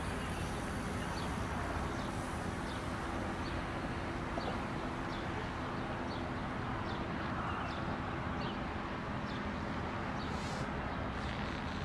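Steady outdoor rumble with a low machinery hum, and a bird chirping repeatedly, about once every second or so.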